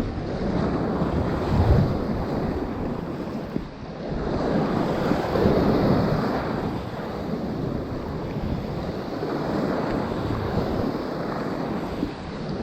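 Ocean waves surging and washing, with wind buffeting the microphone. The wash swells about two seconds in and again around five to six seconds in, with a brief lull near four seconds.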